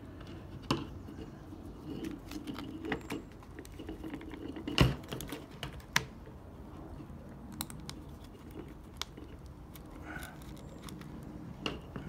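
Irregular small clicks and taps of a Phillips screwdriver and fingers against the metal plate and plastic housing of a Toyota Sequoia door latch assembly as a tight screw is lined up and worked at. The sharpest click comes nearly five seconds in, with another about a second later.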